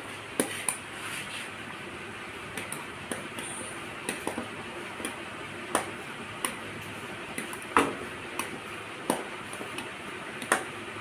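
A steel spoon clinking against an aluminium saucepan and small glass bowls as custard is scooped and served: irregular sharp clinks, about one a second, some in quick pairs.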